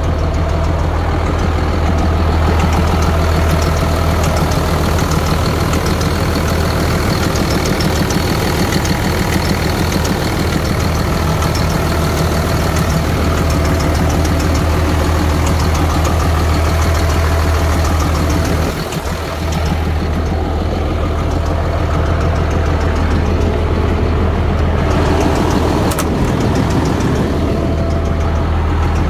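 2007 Peterbilt 335 dump truck's diesel engine idling steadily.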